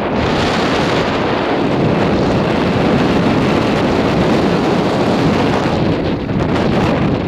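Strong wind blowing over the microphone: a loud, steady rush of wind noise.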